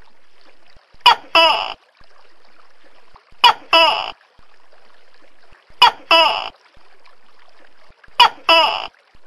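Tokay gecko calling "to-kek" four times, about every two and a half seconds. Each call is a short sharp first note followed by a longer second note, over a steady background hiss.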